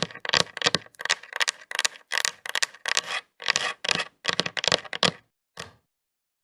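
Long fingernails scraping in quick repeated strokes, about three a second, that stop a little before the end.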